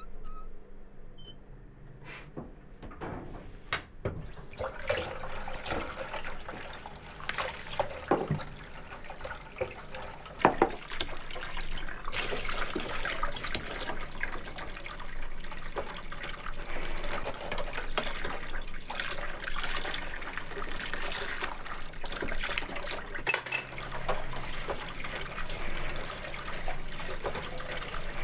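Kitchen mixer tap running into a sink full of dishes, with dishes knocking and clinking as they are washed by hand. The water starts a few seconds in and runs on steadily.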